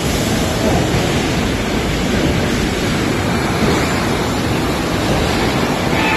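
8 ft rotary veneer lathe line running, peeling a log into a continuous veneer sheet: a loud, steady rushing noise.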